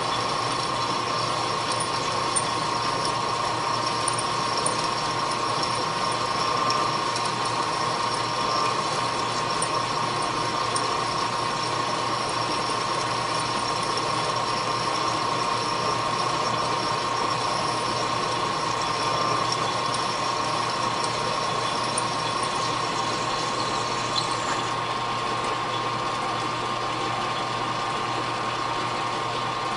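Machine tool running steadily while boring a steel adaptor, with a constant whine and a hiss of cutting, and faint ticks through it. The higher hiss and whine drop out about 24 seconds in, leaving the machine's steady hum.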